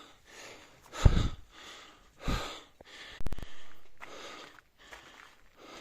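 A hiker breathing hard and fast while climbing uphill, in quick repeated breaths. There is a short sharp knock a little past halfway.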